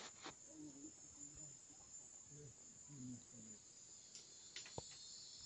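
Crickets chirring faintly and steadily in a continuous high-pitched trill, with a second, lower trill growing stronger near the end.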